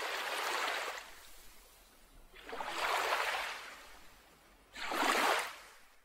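Ocean waves washing in three surges, each swelling and fading away, the last one shorter and starting more sharply near the end.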